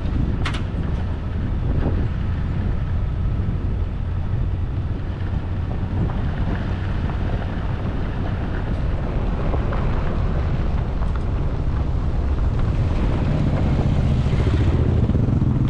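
Pickup truck driving up a dirt road, with a steady engine drone and the rumble of tyres on the unpaved surface.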